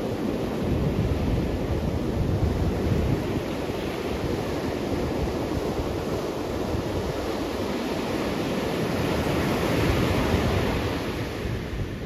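Ocean surf on a sandy beach: a continuous rush of breaking waves and foam washing up the sand. It swells louder about ten seconds in, then eases off.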